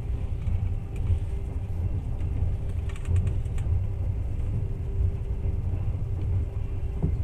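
Passenger train running along the track, heard from inside the carriage as a steady low rumble with a faint steady hum. A few faint clicks come about three seconds in.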